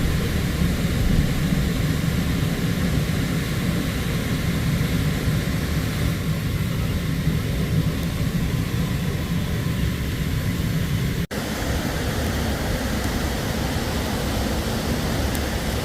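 Steady low rumble of a vehicle driving, cut off for an instant about eleven seconds in before resuming.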